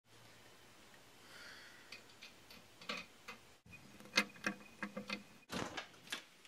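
Small, sharp, irregular metal clicks and scrapes of a tiny screwdriver turning a screw in a wooden dresser drawer, starting about two seconds in and coming a few times a second.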